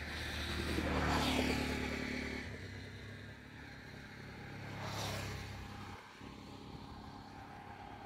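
Motor vehicles passing close by on a road, engines running. A loud one goes past about a second in, falling in pitch as it passes, and a smaller one about five seconds in. A low engine hum underneath stops about six seconds in.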